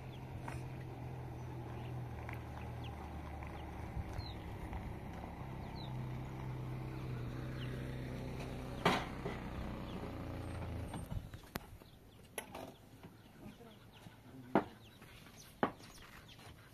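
A motor runs with a steady low hum, then stops about eleven seconds in. A few sharp knocks follow, the loudest about a second and a half before the end.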